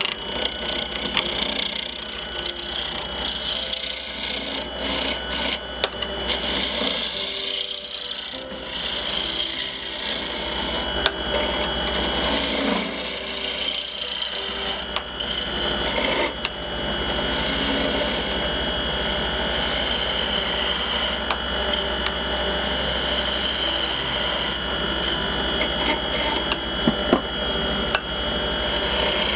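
Wood lathe running while a turning tool cuts the spinning wood: a continuous rasping scrape over a steady low motor hum, with small irregular ticks of the tool on the wood.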